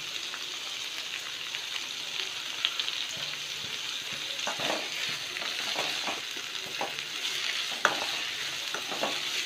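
Sliced onions sizzling in hot oil in a kadai, stirred with a perforated steel ladle. The ladle scrapes and clicks against the pan over a steady sizzle, more often in the second half.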